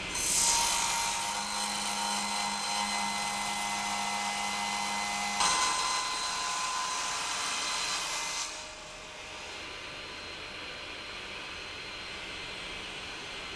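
Table saw cutting a clear Lexan polycarbonate sheet: a steady high whine with the blade under load, with a surge at the start and another about five and a half seconds in. About eight and a half seconds in it drops to a quieter steady hum as the saw runs on without load.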